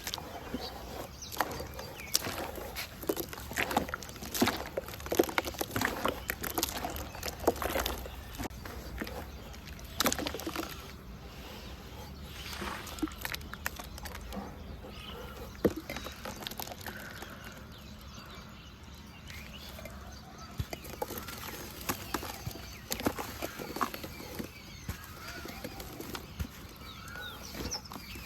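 Red dirt crumbling and dipping into water: a run of small crackles and clicks, thick for the first ten seconds or so and thinning out after that. Birds call faintly in the background in the second half.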